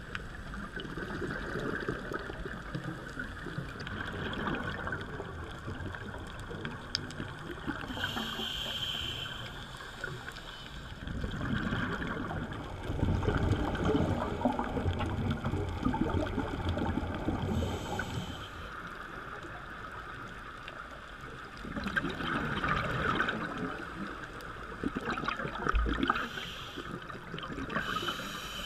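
Underwater sound picked up through a camera housing on a scuba dive: the diver's regulator bubbles gurgling in long bursts with each exhale over a steady hiss. The loudest bursts come in the middle and again near the end.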